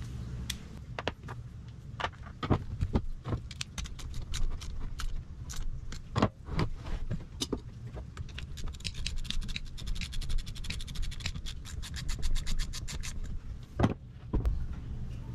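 Hand ratchet wrench tightening a nut: scattered metal clinks and knocks of the tool and socket, then a fast, even run of ratchet clicks for several seconds in the second half.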